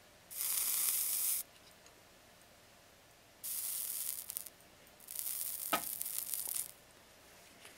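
Flux sizzling under a hot soldering iron as 60/40 lead solder melts onto a white metal part: three short bursts of hissing, the last and longest with a small click in it.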